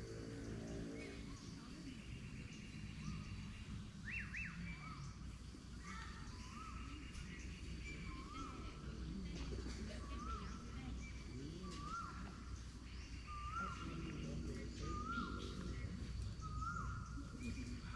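Birds calling in forest: one short call that rises and then holds, repeated about once a second, with other brief calls higher up. Under them runs a steady low murmur of flowing water.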